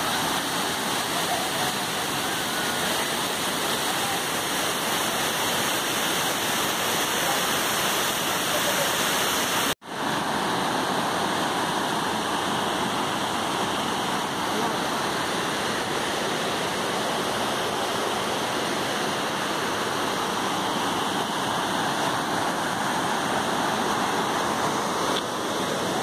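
Tirathgarh Falls, a wide tiered waterfall, rushing steadily as a continuous even wash of falling water. The sound cuts out for a moment about ten seconds in and then resumes unchanged.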